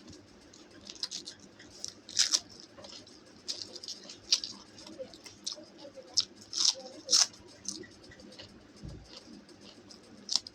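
Close-miked eating: a person chewing and biting food, with irregular sharp, crunchy clicks and wet mouth sounds, several louder crunches scattered through.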